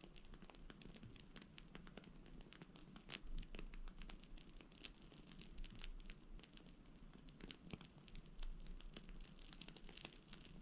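Bonfire-style candle burning with a faint, irregular crackle: scattered small snaps and pops over a low hiss.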